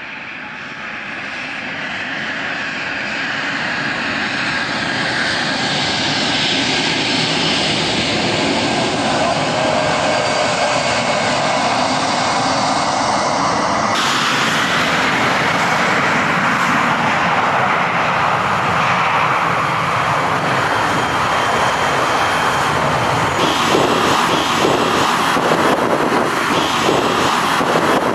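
Jet airliners' engines running close by as the planes taxi: a steady whining rush with a faint whistle, fading in over the first few seconds. It changes abruptly about halfway through and again near the end as one aircraft gives way to the next, the last being a Boeing 737-800.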